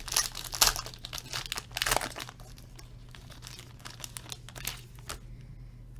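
Plastic wrapping on a trading card box crinkling and tearing as it is opened, dense for the first two seconds, then lighter rustles and clicks that stop about five seconds in.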